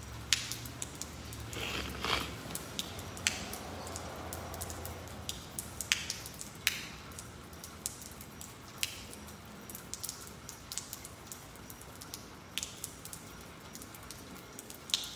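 Irregular sharp ticks and taps, a dozen or so spread unevenly, over a faint steady hiss.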